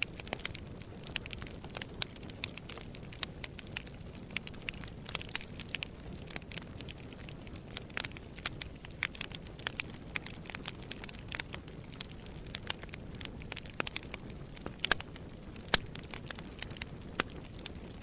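Wood fire burning in a fireplace: a steady low rumble with irregular crackles and snaps, including a few louder pops about fifteen and sixteen seconds in.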